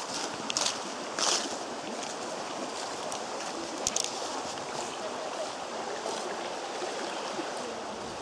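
Footsteps swishing through grass and dry fallen leaves, two steps in the first second and a half and one more about four seconds in, over the steady rush of a stream.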